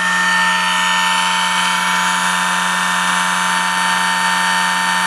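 Brushless motor dyno driven by a Castle ICE2 HV160 ESC at 50% throttle under a 40 A load, running with a steady whine made of several fixed pitches, one low and the rest higher.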